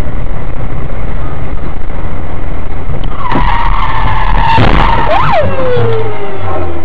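Car tyres squealing in a skid on asphalt, starting about three seconds in, with a couple of sharp knocks in the middle; the squeal rises briefly and then slides down in pitch. Steady road and engine rumble from the dashcam car runs underneath.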